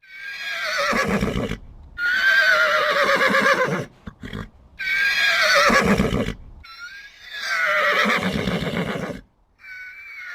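Horse whinnying repeatedly: about four long neighs with a quavering pitch, short pauses between them, and a shorter one starting near the end.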